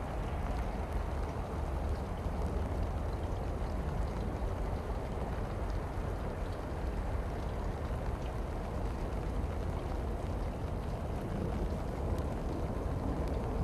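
Steady low rumbling outdoor noise, even throughout, with a few faint ticks.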